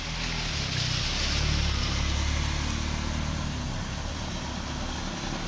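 A motor vehicle passing along a flooded road: a low engine hum that swells over the first two seconds and then eases off, over a steady hiss of tyres through standing water.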